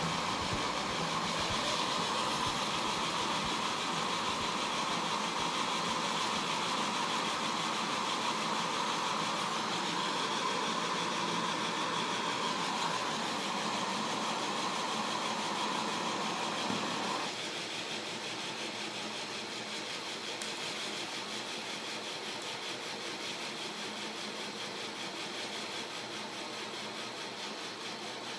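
Accucraft Ruby #5 live steam locomotive running in place, a steady hiss of steam and its butane gas burner. About seventeen seconds in the gas is shut off: the sound drops suddenly to a quieter, steady steam hiss as the engine keeps turning over.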